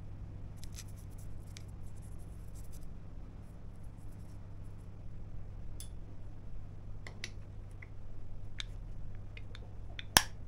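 Small scattered clicks and rustles of hand-work with small tools, then one sharp click near the end, over a steady low hum.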